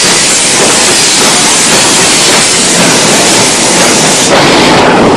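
Small steam locomotive hissing steam loudly; the hiss cuts off about four seconds in, leaving a lower rumble.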